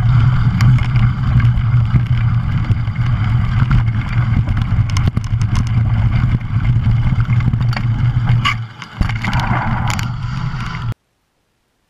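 Wind buffeting a mountain bike rider's action-camera microphone at speed, a steady low rumble, with sharp rattles and clicks from the bike over the rough dirt trail. It dips briefly near the end, then cuts off suddenly.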